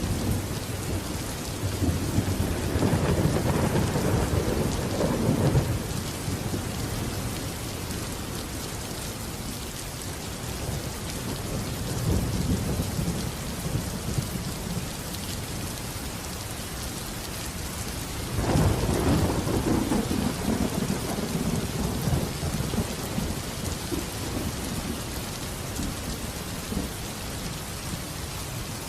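Steady heavy rain falling, with rolls of thunder rumbling through it: a long roll about two seconds in, a fainter one midway, and another long roll near two-thirds of the way through.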